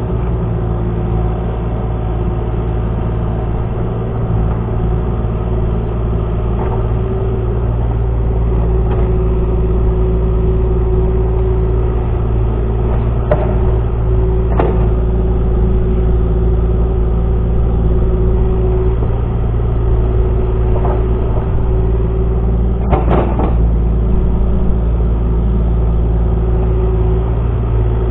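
Excavator engine running steadily, with a few short knocks or clanks around the middle and about two-thirds of the way through.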